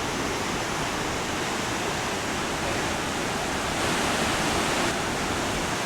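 Kjossfossen waterfall rushing: a steady, dense wash of falling water.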